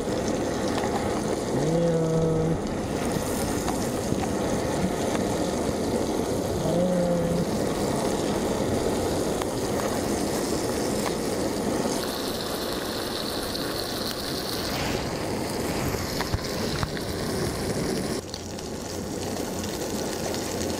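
Steady hiss of a Primus gas canister stove burner, with moon snail pieces sizzling in butter in the pan on top.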